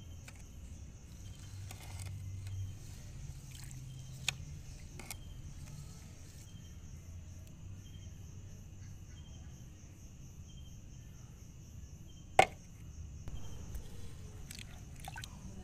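Outdoor ambience: a steady, gently pulsing high insect drone over a low rumble, broken by a few sharp knocks, the loudest about twelve seconds in.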